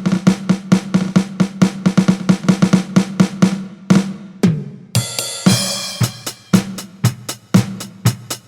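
Millenium MPS-150 electronic drum kit's sampled drum sounds, heard direct from its sound module: a quick run of drum hits, then about five seconds in a crash cymbal comes in under the continuing beat.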